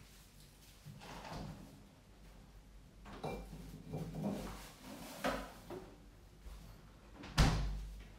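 Scattered handling noises, soft rustles and knocks, then one sudden loud thump like a drawer or door shutting about seven seconds in.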